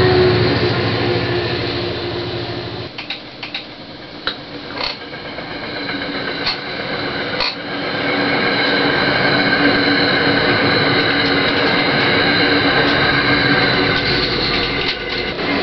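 Passenger trains on the line outside: a train's low rumble cuts off abruptly about three seconds in. A quieter stretch with a few sharp clicks follows, then from about eight seconds steady rail noise with a high whine sets in and holds.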